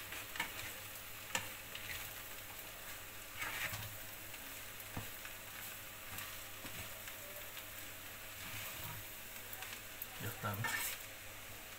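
Gallo pinto (rice and beans) sizzling as it fries in oil in a pan, stirred with a spatula, with a few brief scrapes and taps of the spatula against the pan.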